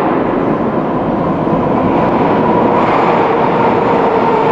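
Moscow Metro train running, a loud steady rail rumble with a motor whine that drifts slightly down in pitch and grows clearer toward the end.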